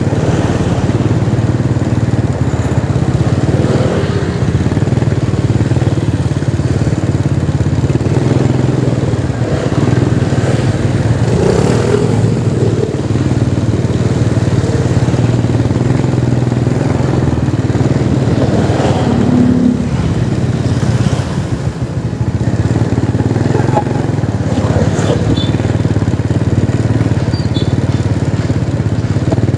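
Busy city street traffic with motorcycle engines running, a steady low engine hum throughout.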